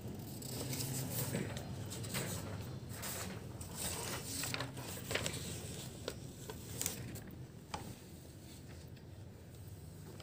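Sheets of paper being handled and moved on a desk: scattered soft rustles and light taps over a low steady hum.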